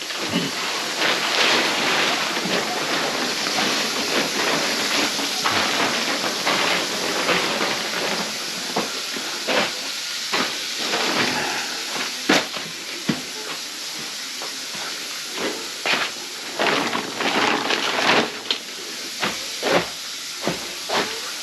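Water running into a kitchen sink: a steady rushing hiss with irregular clicks and clatter.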